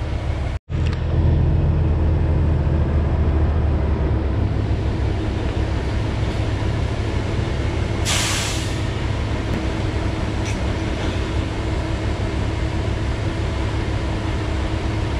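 Diesel engine of a septic vacuum pumper truck running steadily, with a steady hum over the low rumble. About eight seconds in there is a short hiss of air from the truck's air brakes.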